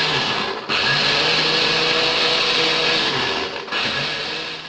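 Countertop blender running at full speed, pureeing avocado with milk, raisins and almonds. It cuts out for an instant about a second in and dips again later, then winds down near the end.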